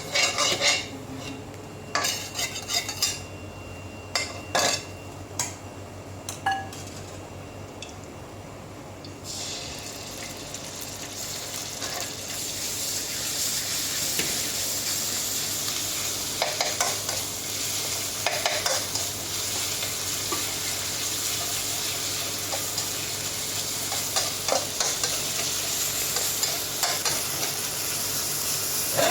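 A metal spatula clacks and scrapes on a hot pan. About nine seconds in, a loud sizzle starts suddenly as oyster omelette fries in oil, and scrapes and taps of the spatula carry on over it.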